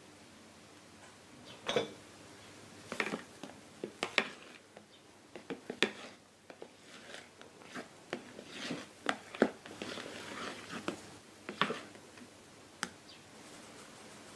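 A silicone spatula folding thick, airy egg batter in a glass bowl: irregular wet scrapes and squelches with sharp taps of the spatula against the glass. It starts after a quiet second or two and goes on until near the end, as the melted butter is folded in.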